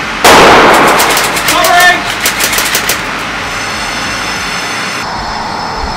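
A sudden loud blast about a quarter second in, then a rapid string of airsoft gun shots, about six a second, for some two seconds, with a brief shout among them.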